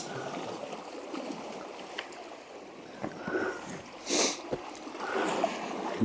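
Gentle lapping of lake water against shoreline rocks, with a brief splash about four seconds in.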